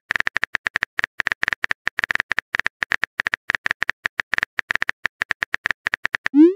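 Rapid phone-keyboard tap clicks, about nine a second, as a text message is typed out. Just before the end, a short rising swoosh, the message-sent sound, louder than the clicks.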